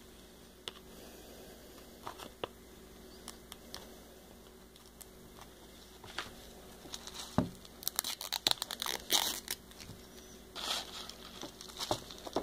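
Packaging being unwrapped: crinkling and crackling with some tearing. It is faint at first, then busy crinkles and clicks come in about halfway through and continue to near the end.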